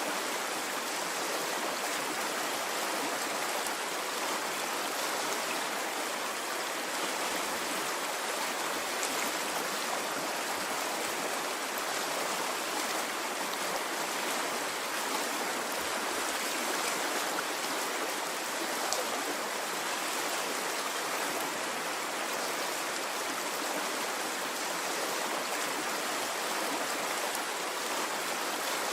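Stream of water running steadily, an even rushing and gurgling with no rise and fall of waves.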